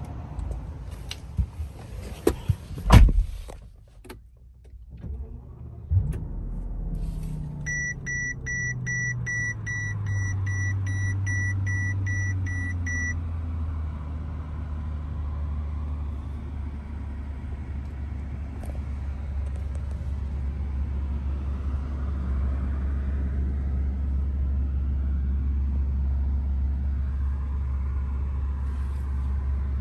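A Mercedes-Benz S65 AMG's twin-turbo V12 starts, heard from inside the cabin: the idle comes down over several seconds and then runs steady and low. While it settles, a dashboard warning chime beeps about two and a half times a second for some five seconds. Before the start, a few clicks and one loud thump.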